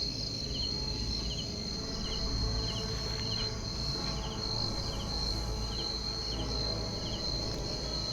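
Night insects: a steady high-pitched trill with a cricket chirping over it, each chirp a quick triple pulse, about four chirps every three seconds. A low rumble sits underneath.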